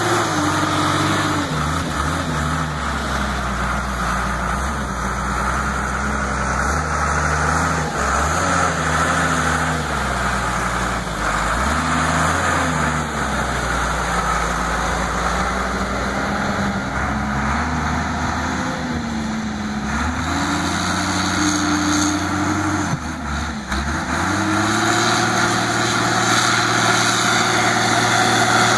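New Holland 12D Turbo wheel loader's diesel engine running under changing load as it works dirt, its pitch rising and falling again and again. It drops briefly about three quarters of the way through, then runs steadier and higher.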